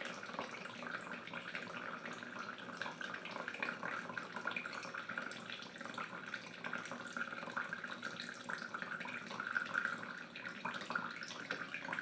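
Thin, steady stream of water from a Sawyer Mini filter, gravity-fed from a squeeze pouch without squeezing, running into a plastic cup.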